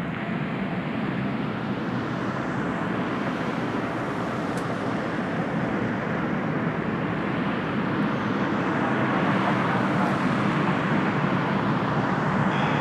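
Jet airliner taking off, a dense engine noise that grows steadily louder.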